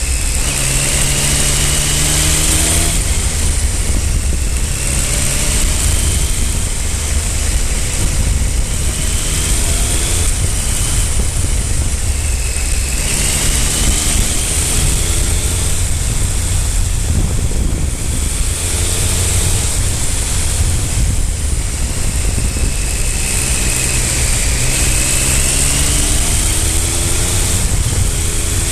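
Triumph Speed Triple 955i's inline three-cylinder engine under way, its pitch climbing repeatedly as it accelerates through the gears. A heavy, steady rumble and hiss of wind on the microphone runs underneath.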